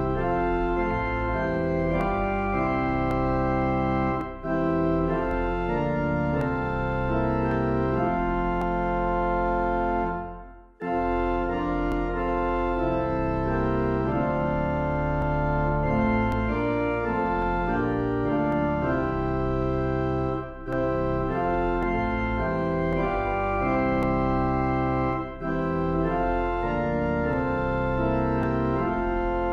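Organ playing a slow hymn in sustained chords, with brief pauses between phrases and a longer break about ten seconds in.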